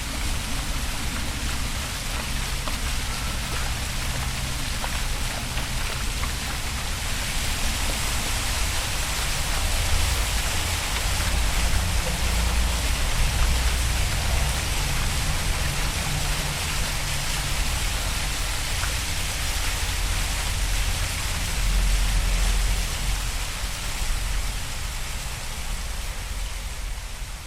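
Steady rain-like hiss of outdoor nature ambience, with a low rumble that swells and eases, strongest about a third of the way in and again near the end.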